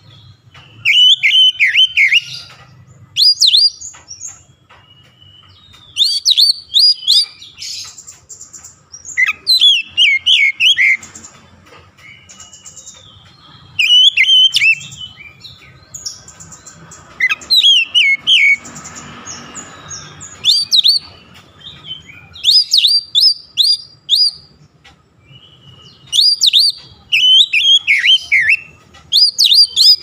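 Male oriental magpie-robin (kacer) in full song: loud, sharp, clear phrases of quick whistled notes that sweep downward. The phrases repeat every couple of seconds, about nine in all, with short pauses between them.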